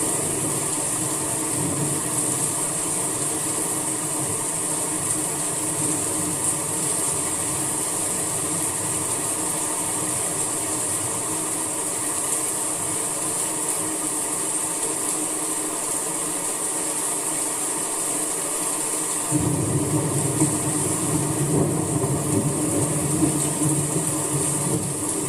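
Steady summer rain falling as an even hiss, with a low rumble underneath that fades in the middle and comes back suddenly about nineteen seconds in.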